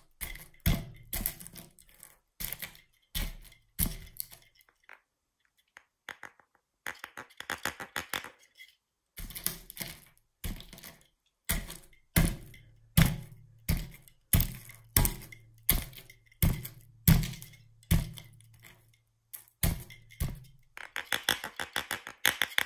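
Popcorn being crushed under the base of a Pennywise head-knocker figurine: a series of sharp crunches and knocks, about one or two a second. There is a short pause about five seconds in, and a quick run of small crackles near the end.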